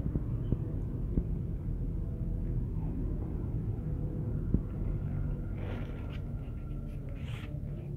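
Steady low background rumble, with a few soft clicks and brief rustles near the end.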